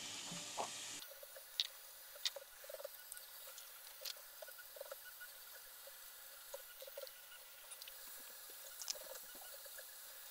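Faint, scattered small clicks and taps of hands fitting the filament holder and its M4 screws onto a Sovol SV-07 Plus 3D printer's top frame.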